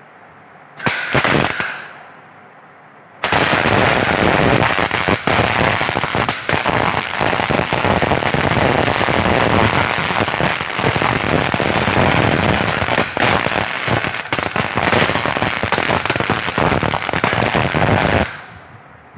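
MIG welding arc on mild-steel strip, set at about 154 amps, with a dense steady crackle. A short burst of crackle about a second in is followed by a continuous run of about fifteen seconds as the butt-joint bead is laid, stopping shortly before the end.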